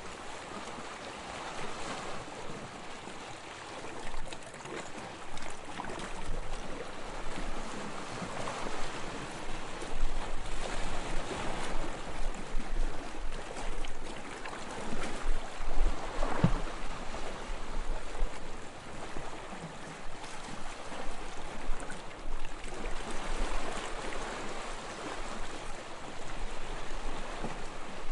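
Sea water lapping and splashing in small waves, swelling and easing every second or two, with low wind rumble at times.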